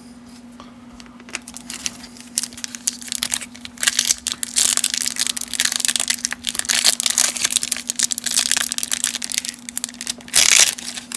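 Foil wrapper of a 1991 Leaf Studio baseball card pack crinkling and tearing as fingers pick it open, a dense run of crackles with a louder rip near the end.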